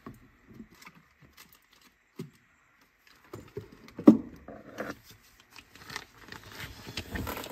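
Light clicks and taps of small parts and a tool being handled on an opened cassette Walkman, with one louder knock about four seconds in.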